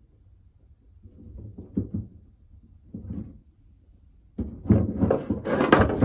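Handling noise from test-fitting a shore power inlet plug into a freshly drilled hole in a van's body panel. A few light knocks, then from about four seconds in a loud run of scraping and clattering as the plug is worked into the hole.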